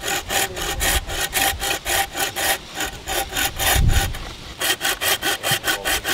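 Small hand saw cutting a notch into a wooden pole in quick, even back-and-forth strokes, about four or five a second, with a brief pause around four seconds in.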